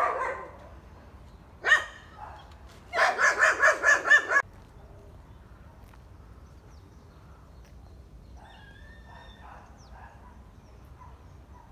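A dog barking in quick runs: a string of barks trailing off at the start, a single bark near two seconds in, then a rapid string of about eight barks.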